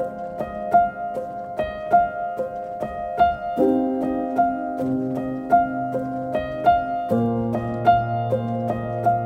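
Background music: a gentle piano-like melody of repeating plucked notes over sustained chords that change every few seconds.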